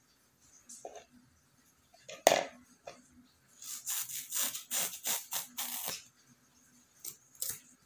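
Utility knife blade sawing through a foam kitchen sponge in a run of short rasping strokes, about three or four a second. A single sharp knock comes about two seconds in, and two small clicks near the end.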